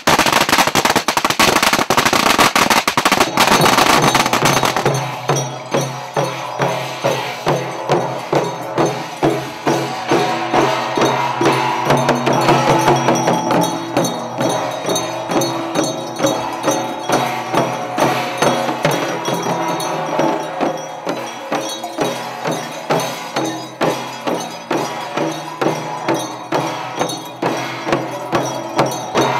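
A string of firecrackers going off in rapid crackling bursts for about the first five seconds. After that, a band of gongs and hand cymbals plays a steady, even beat, the gongs ringing on underneath.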